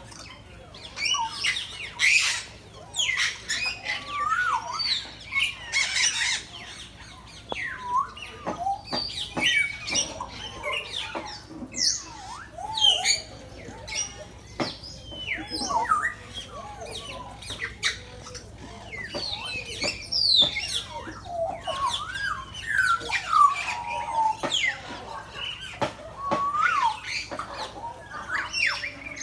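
Many parrots squawking and whistling together: a dense chatter of short, overlapping calls, many sliding up or down in pitch.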